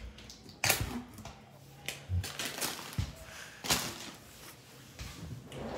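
Several sharp knocks and clicks from kitchen items being handled, spaced irregularly, over a faint steady low hum.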